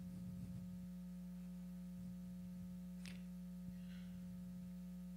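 Steady low electrical hum, with one faint tick about three seconds in.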